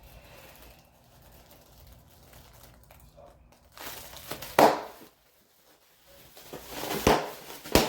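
Snap pops (throw-down poppers) cracking: one loud sharp crack about halfway through, then two more quick cracks near the end.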